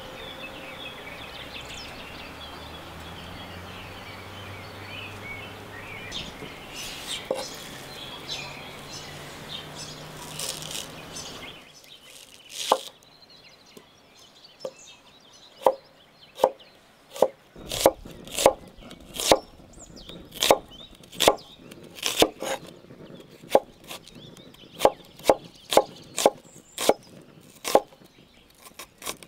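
A steady low background for about the first eleven seconds. Then a large kitchen knife chops onion on a wooden cutting board: about twenty crisp knocks of the blade against the board, irregularly one to two a second.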